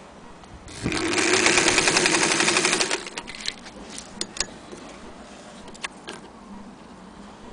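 Singer 201K electric sewing machine running at speed for about two seconds, a fast even needle chatter over a steady motor hum, then stopping. A few scattered light clicks follow.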